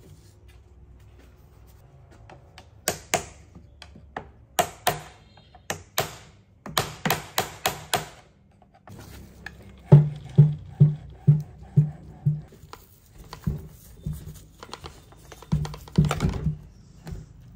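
Hammer striking a screwdriver used as a drift against the steel drive shaft tube of a rusty brush cutter, knocking the tube loose from the engine's clutch housing. Sharp metal knocks come singly at first, then in a quick cluster, then evenly about twice a second.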